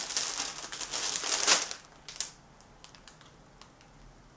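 Parcel packaging crinkling and rustling as it is handled, for a little under two seconds, then only a few faint ticks.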